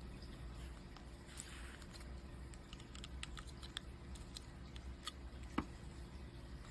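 Lego bricks handled and pressed together: a scatter of light plastic clicks, with one louder knock about five and a half seconds in.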